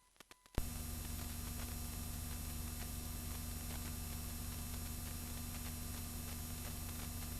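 Steady electrical hum and hiss that cuts in suddenly with a click about half a second in, then holds level.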